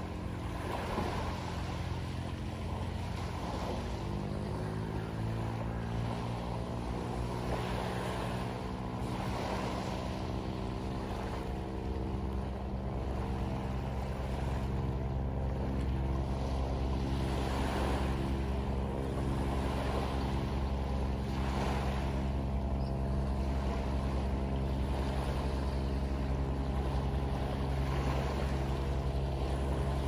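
A small boat's engine drones steadily, its pitch shifting a few seconds in, then holding and growing louder from about halfway through. Small waves wash onto a pebbly shore throughout, swelling and fading every second or two.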